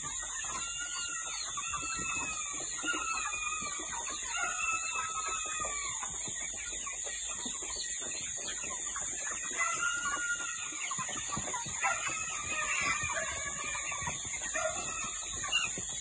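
A flock of young white broiler chickens calling, with many short arched calls overlapping and repeating throughout. A constant high-pitched whine runs underneath.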